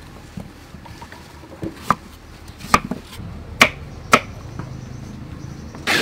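Cleaver chopping peeled taro root on a wooden chopping block: a handful of sharp knocks at irregular intervals, four of them clearly louder than the rest.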